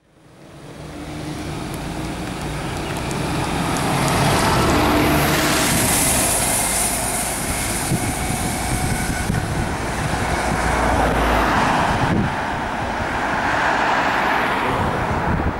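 Diesel engine of an Alexander ALX400 double-deck bus pulling away and accelerating, its engine note rising in pitch. Near the end a car passes close by.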